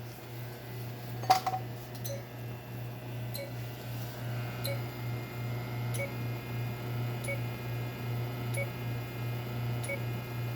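Electronic equipment humming steadily. A sharp click comes about a second in, then short faint beeps repeat about every 1.3 seconds.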